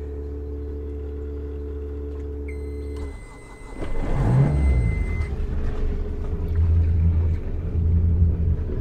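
A sailboat's inboard engine being started at the helm panel: a steady hum stops about three seconds in, a high warning beep from the panel sounds for about three seconds, and the engine catches about four seconds in and runs with an uneven low pulse.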